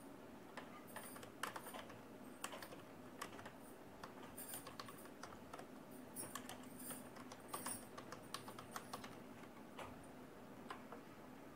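Computer keyboard being typed on: faint, irregular keystroke clicks in quick runs, over a low steady hum.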